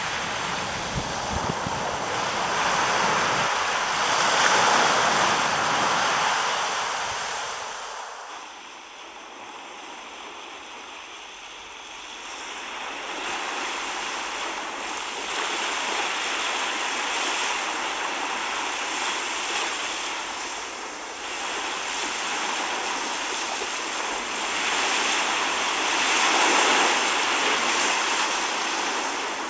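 Rough sea waves breaking and washing up on a sandy beach and against basalt rocks, in swelling surges that are loudest early on and again near the end, with a quieter lull about a third of the way in. Wind blows through it.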